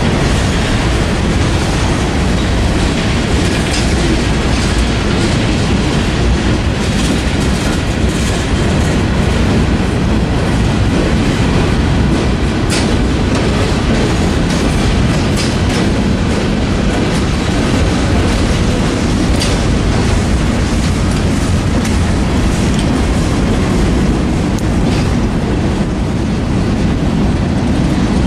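Freight cars (tank cars, covered hoppers and flatcars) rolling past close by. Their steel wheels make a loud, steady rumble on the rails, with scattered sharp clicks and clanks.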